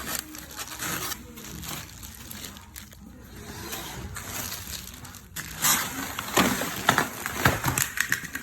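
Handling noises: irregular scraping, rustling and light knocks, growing louder and busier about two thirds of the way in.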